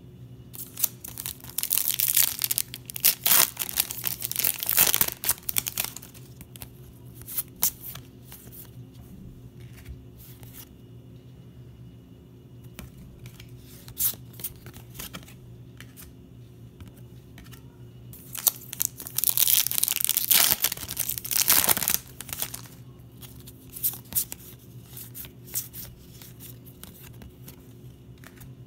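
Plastic trading-card pack wrappers being torn open and crinkled in two long spells, about a second in and again near two-thirds of the way through, with the short flicks and rustles of cards being handled in between.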